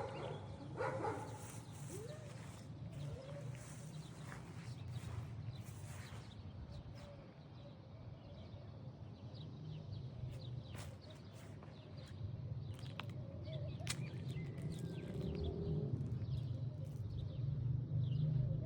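A few short animal calls in the first few seconds, with scattered clicks over a steady low rumble.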